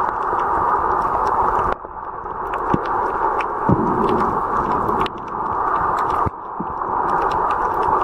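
Underwater sound picked up by a camera in its housing: a steady rush of water noise full of small scattered clicks, with a few dull knocks. The rush drops off suddenly three times and builds back up each time.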